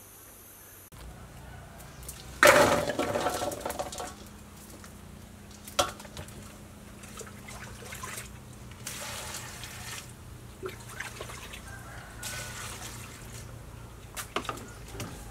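Water splashing and sloshing in a metal basin as hands wash small round Burmese grape fruits. The loudest part is a burst of splashing about two and a half seconds in, followed by a sharp knock and softer intermittent sloshing and clinks.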